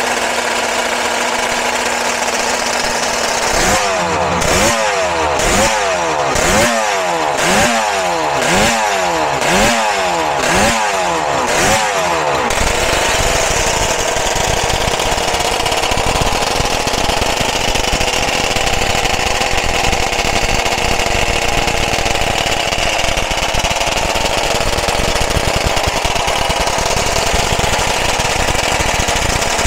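Two-stroke racing motorcycle engine running steadily while warming up. A few seconds in, the throttle is blipped about once a second, the revs rising and falling some nine times, before it settles back to a steady run.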